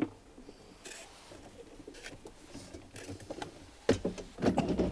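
Handling noise of wiring being moved about: soft rustling and light knocks, with a sharp click about four seconds in and a louder clatter just before the end.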